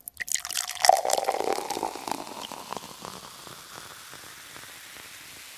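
Crackling, fizzing hiss: dense pops that are loudest about a second in, then thin out over the next couple of seconds into a steady quiet hiss.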